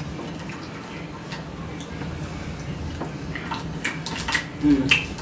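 Crab shells clicking and cracking as crab meat is picked out and eaten, with a cluster of sharp clicks in the last two seconds.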